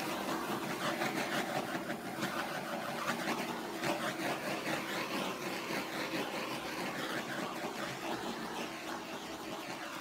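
Handheld refillable butane torch burning with a steady hissing flame. Its output is strong, typical of a more powerful burner.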